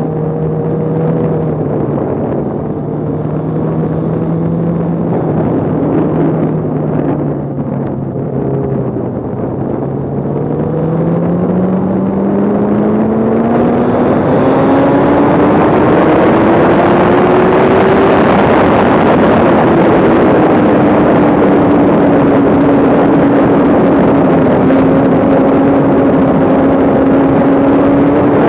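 Motorcycle engine heard from on board at track speed: it runs steadily at first, climbs in pitch for several seconds from about a third of the way in, then drops a step with an upshift and holds. Wind rush on the microphone grows loud from about halfway, as the speed passes 80 mph.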